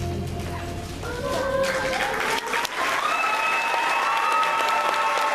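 A song ends and audience applause builds up about a second and a half in, with held, wavering voices cheering over the clapping.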